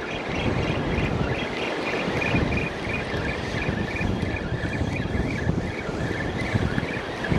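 Wind buffeting the microphone with a low, gusty rumble over the wash of small surf breaking on the beach. A faint, regular higher-pitched pattern runs underneath.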